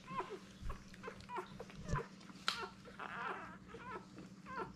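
Four-day-old English Springer Spaniel puppies squeaking and whimpering while they nurse: a string of short, high, falling squeaks every half second or so, with a soft rustle and knock of handling in between.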